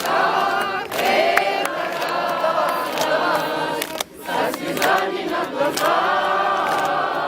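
Many voices singing a song together as a crowd, with a short break about four seconds in.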